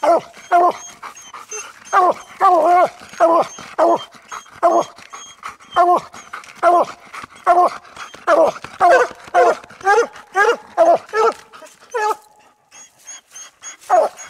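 Two coonhounds barking treed at the base of a tree, one loud bark after another at about one to two a second: the steady tree bark that says the hounds have a coon holed up in a den tree. The barking lulls briefly about twelve seconds in, then starts again near the end.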